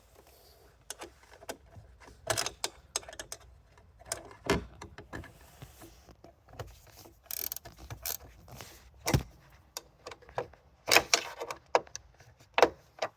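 Irregular clicks, knocks and rattles of hand tools and metal parts as Torx screws are tightened, with a few sharper knocks in the second half.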